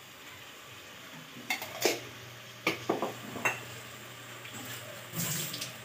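A wooden spatula knocking and clicking against a pan and a ceramic bowl several times, over the faint sizzle of chicken curry simmering in the pan, with a short scrape near the end.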